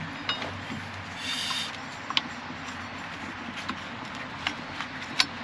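New serpentine belt being worked by gloved hands around a Mercruiser 5.0L V8's pulleys: scattered light clicks and rustles, the sharpest about two seconds in and near the end, over a steady low hum.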